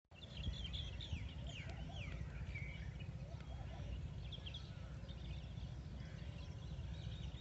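Several birds chirping and calling, with short chirps and quick falling whistles throughout, over a steady low rumble.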